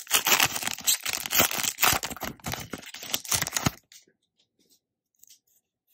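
Foil Pokémon booster-pack wrapper being crinkled and torn open by hand: a dense crackling that stops about four seconds in.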